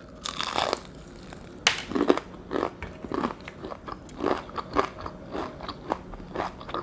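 A person biting into a piece of beer-battered fried chicken, the crisp fried crust crunching, then chewing it in a steady rhythm of about two chews a second.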